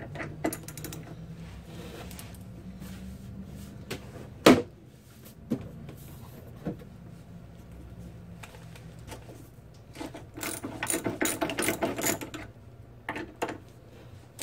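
Hand ratchet on a 3/8-inch drive socket clicking as an engine mount bolt is worked, with a fast run of clicks near the end. A single sharp metallic knock about four and a half seconds in is the loudest sound, over a faint steady low hum.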